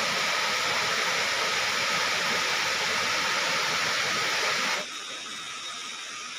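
Waterfall rushing steadily as it pours down tiers of dark rock. About five seconds in, the sound drops abruptly to a quieter steady hiss.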